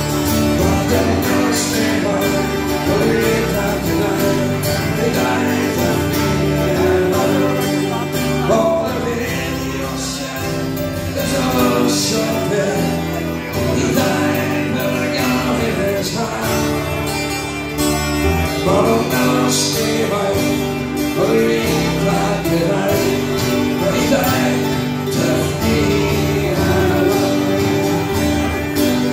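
Live band music: an acoustic guitar strummed along with electric guitars, and a man singing at times.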